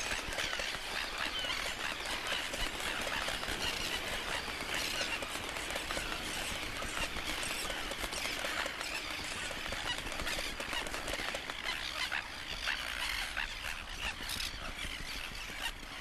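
Breeding colony of crested terns, mostly greater crested terns, calling all at once: a dense chorus of overlapping calls that thins a little near the end.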